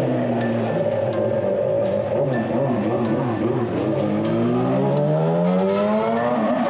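Music with a steady beat mixed with a motorcycle engine whose pitch sinks, wavers, then climbs steadily from about four seconds in as it revs up.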